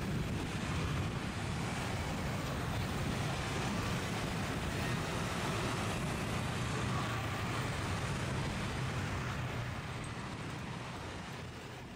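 Steady road traffic: motor scooters and cars running past on the bridge roadway, an even rumble with no single vehicle standing out. It fades down over the last couple of seconds.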